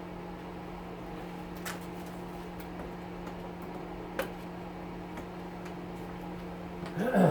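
Wood stove blower fan running with a steady hum. There are a few light clicks, a sharper knock about four seconds in, and a brief voice-like sound at the very end.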